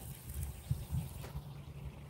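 Wind buffeting the microphone beside a lake, an uneven low rumble.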